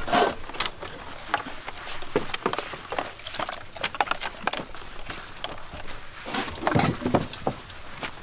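Wooden slatted table, small wooden stools and concrete blocks being handled and set down on ground: irregular knocks and clatters, with a louder cluster of thumps about seven seconds in.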